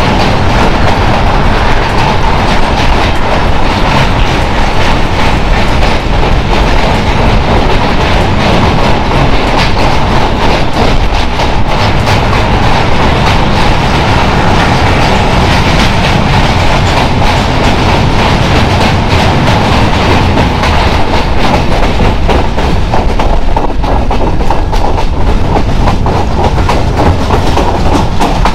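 Passenger train running, a loud steady rumble with the wheels clattering over the rail joints throughout.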